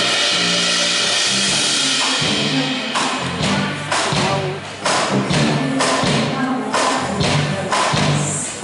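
Live pop band playing: a cymbal wash for about the first two seconds, then a steady drum beat about once a second over a bass line.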